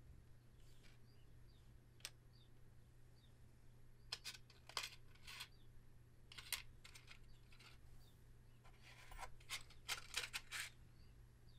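Quiet room with a low steady hum. From about four seconds in, clusters of soft, crisp clicks and crackles come from small objects being handled.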